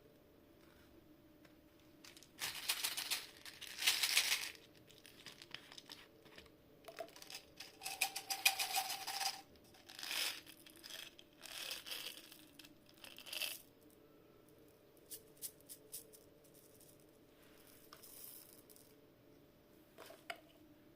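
M&M's candies crackling and rattling in several short crunchy bursts, followed by a few light clicks.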